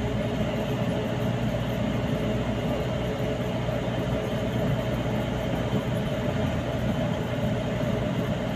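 A truck driving at a steady speed, heard from its cab: an even engine drone and road rumble, with a faint steady hum running through it.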